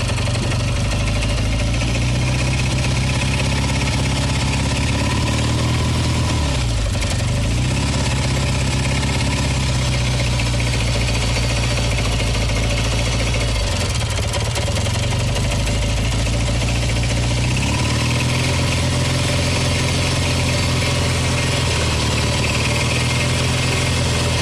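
Kawasaki W1SA's OHV parallel-twin engine running and revved up and down several times, with a hard metallic clicking, 'kachi-kachi', like tappet noise, that comes with throttle opening even though the tappets are adjusted. It was traced to a lightly seized left cylinder and knock from play between the connecting rod and crankshaft.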